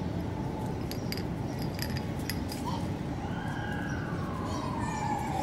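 Street ambience: a steady low rumble of traffic with scattered light clicks. From about three seconds in, a distant siren tone slides slowly down in pitch.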